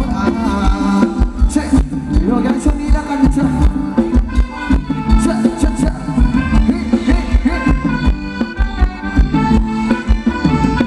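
Live Thai ramwong dance-band music: a melody line over a steady drum beat, with no singing.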